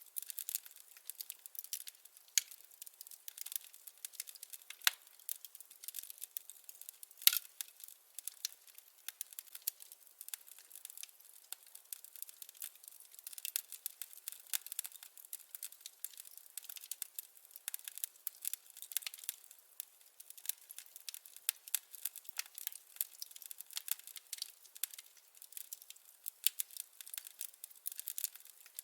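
Wood fire crackling: a dense, irregular run of small sharp snaps and pops, with a couple of louder pops about five and seven seconds in.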